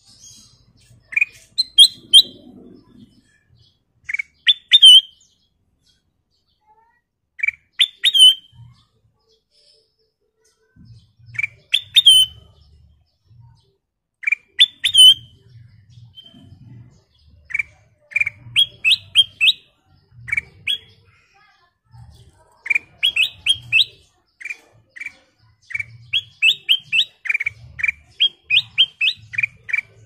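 Ruby-throated bulbul (kutilang emas) singing: short phrases of quick, rising whistled notes every three seconds or so. After about halfway these give way to longer, faster runs of repeated notes.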